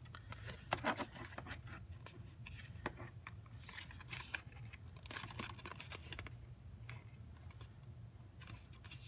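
Stiff poster board being folded and pressed along its score lines by hand: faint, scattered rustles and scrapes of the board against fingers and the table, over a steady low hum.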